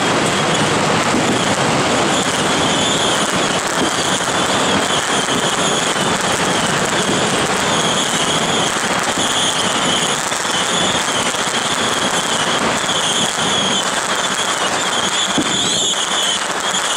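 Strings of firecrackers going off continuously in a dense, unbroken crackle.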